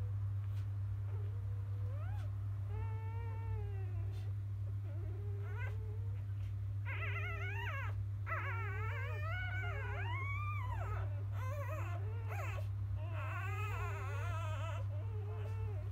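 Newborn Labrador Retriever puppies whimpering and squeaking in short cries that bend up and down in pitch. The cries are scattered at first and come thick from about halfway through, over a steady low hum.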